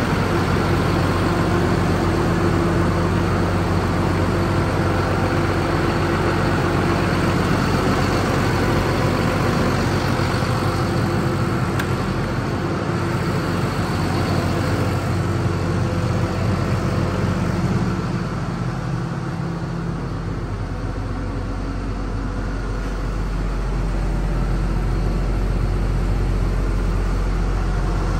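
John Deere 6830 Premium tractor's six-cylinder diesel engine idling with a steady low hum. About two-thirds of the way through, the higher part of the sound fades for a few seconds while the deepest hum gets stronger.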